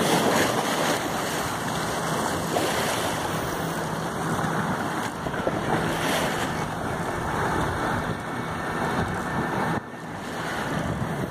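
Sea waves washing against a rocky shore, with wind buffeting the microphone as a steady rushing noise.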